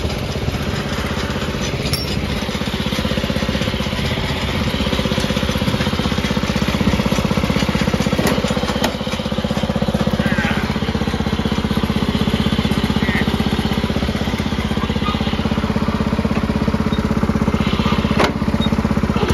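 1968 Sears Suburban 12 garden tractor's engine running steadily, getting somewhat louder several seconds in.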